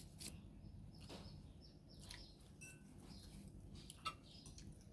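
Near silence at a meal: faint scattered clicks of cutlery on dishes, a sharper click about four seconds in, and a few faint high chirps.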